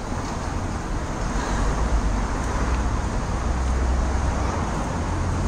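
Steady city street ambience: traffic noise with a constant low rumble and no distinct events.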